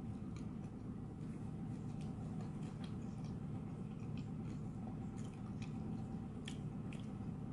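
A person chewing a fried spring roll: scattered short crunching clicks and mouth sounds over a steady low hum.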